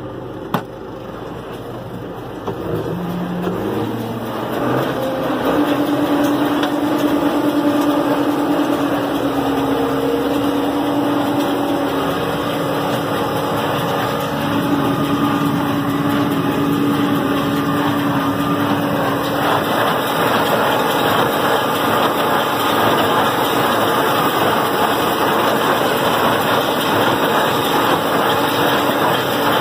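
Tractor engine running and driving a John Deere 328 small square baler as it picks up hay, a steady engine and machinery noise that grows louder over the first few seconds.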